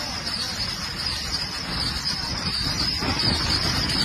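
A train running along the track makes a steady low rumble, under a constant high-pitched buzz that grows slightly louder near the end.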